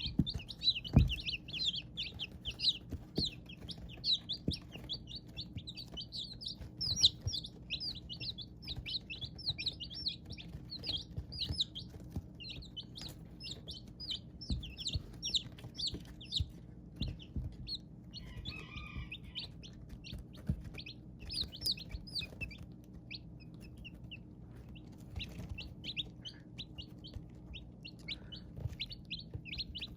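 Baby chicks peeping: a dense, rapid stream of short high peeps from several chicks, thinning out in the second half, with occasional soft low knocks.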